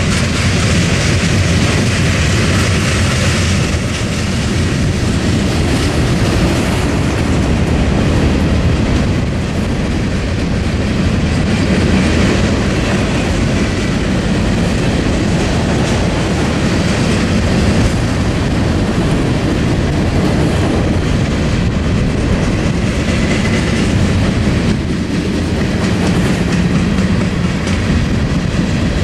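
Mixed freight train of hopper, tank and box cars rolling past close by, steel wheels clattering over the rail joints in a steady, loud rumble.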